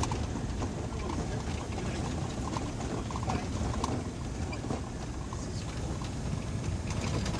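Steady low rumble of a vehicle travelling on a road: engine and road noise, with faint scattered ticks.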